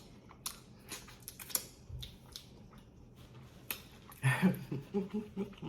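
Close-up mouth sounds of a person chewing a sandwich: scattered soft, wet clicks and smacks. About four seconds in, a short stretch of voice, like a murmur or the start of speech, joins in.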